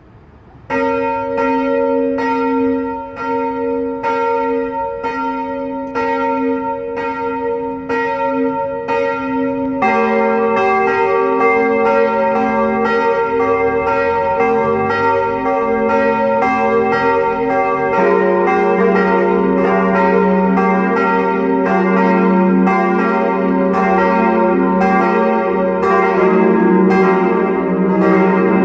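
Steel church bells, cast by Böhler in Kapfenberg in 1922, starting to ring: a single bell begins swinging and striking about a second in, then lower-pitched bells join one at a time, the second about ten seconds in and the third about eighteen seconds in, their strikes overlapping in an uneven rhythm.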